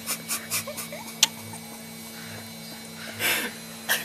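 Baby's mouth smacking and clicking while tasting a sour lemon slice: a quick run of wet clicks in the first second and a sharp smack about a second in, with a few faint whimpers, then a short breathy puff a little after three seconds.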